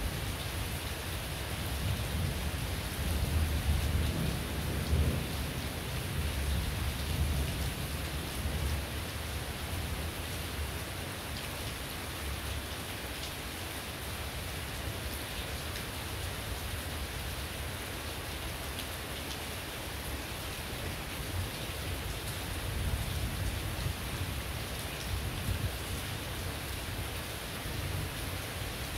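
Heavy rain falling steadily. Under it, a low rolling rumble of thunder swells from about two to eight seconds in and again near the end.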